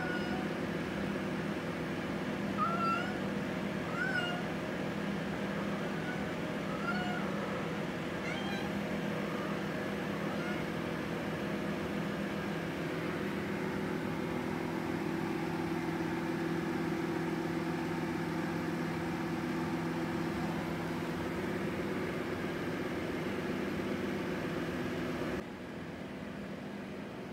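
A cat meowing: about six short meows, each rising then falling in pitch, one every second or two through the first ten seconds or so, over a steady hum.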